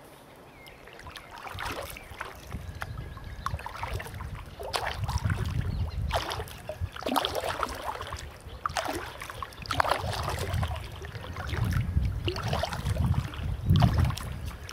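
Kayak paddle strokes dipping and splashing in lake water, about one stroke a second, with a low wind rumble on the microphone.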